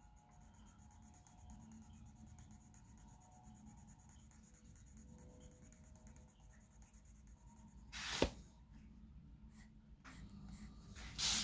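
Coloured pencil (a Bruynzeel colour pencil) scratching across sketch paper as a red swatch is layered over, mostly faint. There is one short, sharp scratch or tap about eight seconds in, and the shading grows louder near the end.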